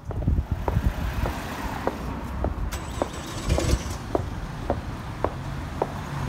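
Footsteps on a paved pavement, about two steps a second, over a loud, uneven low rumble of street traffic.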